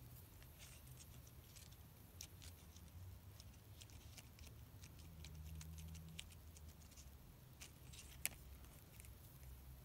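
Faint scattered ticks and soft crinkles of glued paper-strip loops being pressed and handled by fingers, with one sharper click about eight seconds in, over a low steady hum.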